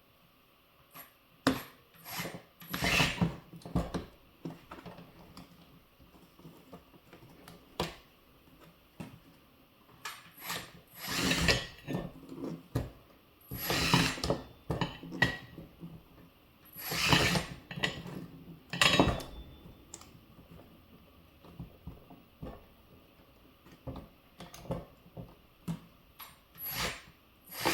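Track links of a Kabolite K963 RC crawler loader clicking and scraping against the drive sprocket in short bursts as the track is worked back onto it. The scraping comes in bursts of a second or two, with scattered clicks between them.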